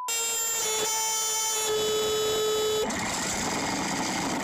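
A steady electronic buzzing tone, horn- or buzzer-like, held for nearly three seconds with a slight drop in pitch partway through, then broken off by a noisy hiss.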